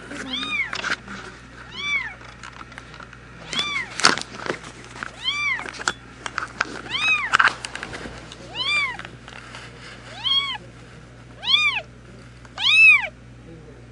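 A newborn kitten mewing over and over: short, high-pitched cries that rise and fall in pitch, roughly one every second or so, the loudest near the end. A few sharp clicks and rustles come about four seconds in.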